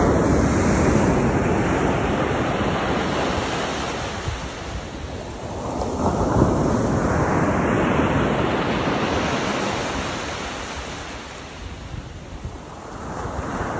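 Sea waves breaking and surf washing up and back over a sandy beach, swelling and ebbing in slow surges: loud at first, a fresh surge about six seconds in, dying down before another wave comes in near the end.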